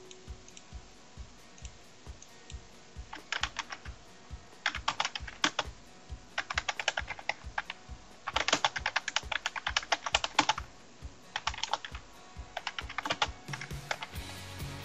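Typing on a computer keyboard in several bursts of rapid key clicks, with short pauses between them.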